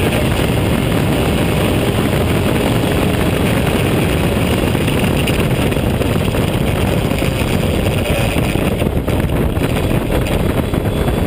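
Open-wheel race car's engine running at racing speed, heard from the cockpit, mixed with heavy wind rush at speed; the sound stays loud and dense without a clear pause or shift.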